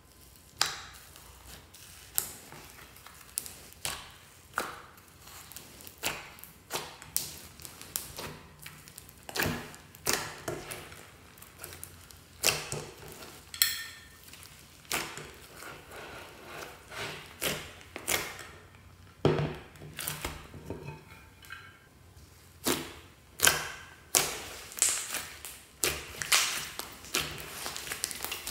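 Slime being squeezed, pressed and poked by hand, giving a string of sharp wet pops and clicks about one or two a second.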